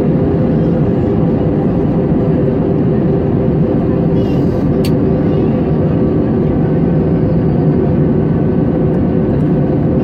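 Airliner cabin noise: the steady drone of jet engines and airflow heard from inside the cabin, with a low hum and a few steady tones. A faint click sounds about five seconds in.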